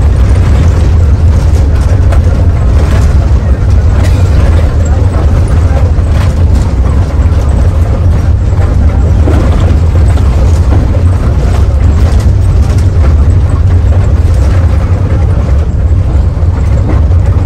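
Mercedes-Benz OH 1521 bus driving, a loud, steady low diesel rumble mixed with road and body noise.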